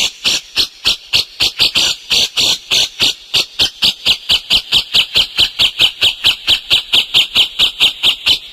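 Caged songbird calling non-stop in a fast, even series of sharp, high chirps, about five or six a second.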